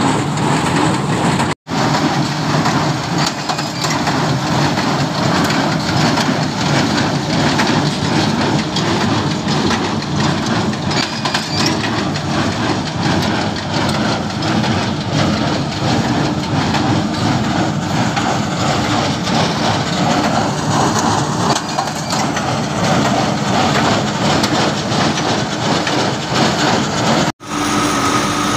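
HMT 5911 tractor's diesel engine running under load while driving a Shaktiman square baler through paddy straw, the baler's mechanism clattering steadily with many small knocks. The sound cuts out for an instant twice, about a second and a half in and near the end.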